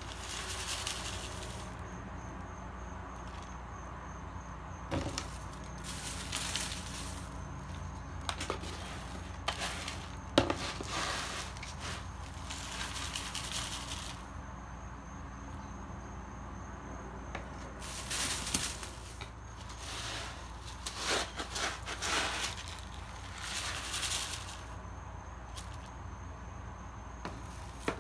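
Plastic slotted scoop digging through clumping cat litter and sifting it, loose granules rattling and hissing through the slots in bursts every few seconds. A sharp knock of the scoop against the box about ten seconds in.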